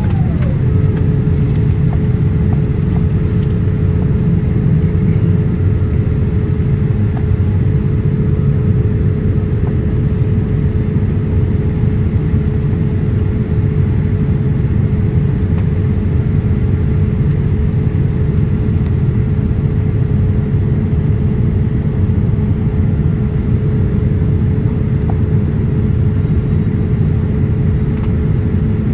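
Cabin noise of a Boeing 787-8 climbing out: a steady low rush of engines and airflow. A thin whine drops sharply in pitch about half a second in, then holds steady.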